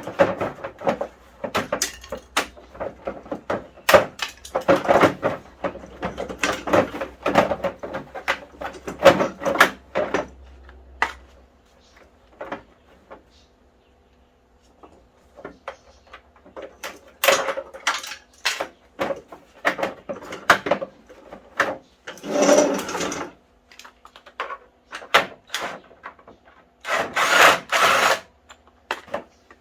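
Hand tools working on an exercise bike's metal and plastic parts: a run of clicks, knocks and rattles, a quiet stretch, then short bursts of clatter.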